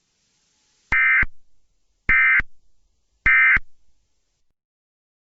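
Emergency Alert System end-of-message signal: three short bursts of SAME digital data tones, about a second apart, marking the end of the alert.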